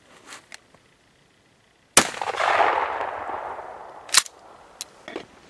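A single shot from a 12 gauge Remington 870 pump shotgun firing a 3-inch turkey magnum shell: a sharp blast about two seconds in, followed by a long rolling echo that fades over the next couple of seconds. About two seconds after the shot come a sharp clack and a few lighter clicks as the pump action is worked.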